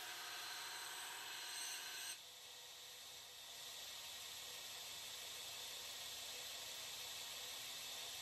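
Belt grinder grinding the bevels of a wootz steel blade for about two seconds, then the blade is lifted off and the belt runs on with a steady, quieter hiss.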